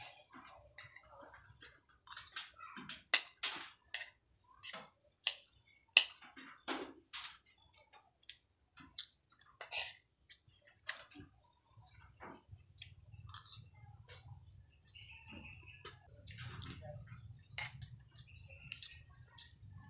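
Eating sounds: a metal spoon clicking and scraping against a steel wok in irregular sharp strokes, with chewing of chicken intestines and rice. A faint low hum comes in about halfway through.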